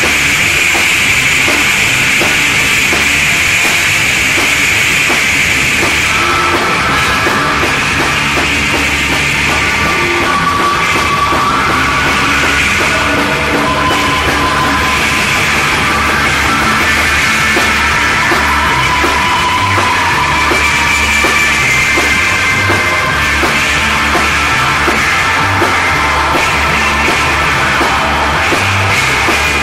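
Instrumental psychedelic rock played by a full band with drum kit: a loud, dense wall of sound with a steady beat. About six seconds in, a bright wash of cymbals and high fuzz drops away and melodic lines come forward.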